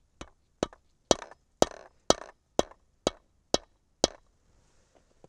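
A mallet striking the top of a steel Lee Loader sizing die: about nine even blows, roughly two a second, some with a short ring. The blows drive a 7.62x54R rifle case into the die's sizing chamber to resize it.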